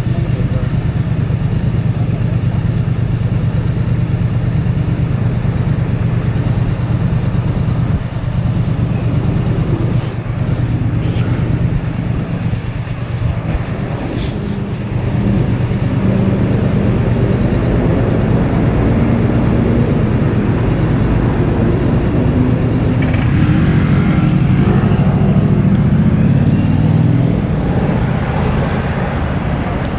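Motor vehicle engine and road noise: a loud, steady low rumble that swells for a few seconds about three quarters of the way through, then eases near the end.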